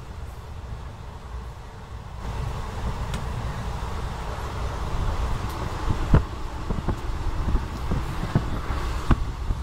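Passenger train running along the track, heard from inside a carriage at an open barred window: a steady low rumble and rushing noise that grows louder about two seconds in, with scattered sharp clacks from the wheels, the loudest a little past halfway.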